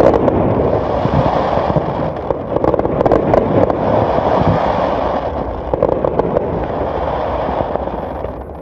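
Fireworks display: a dense, continuous run of aerial shell bangs and crackling. It eases off near the end as the barrage dies down.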